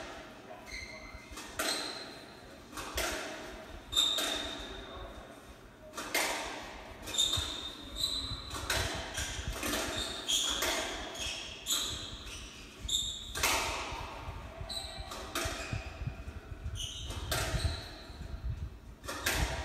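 Squash ball struck by rackets and cracking off the court walls during a doubles rally, a sharp echoing hit about every second or so, with short high squeaks of court shoes on the wooden floor. Heard through a TV's speaker.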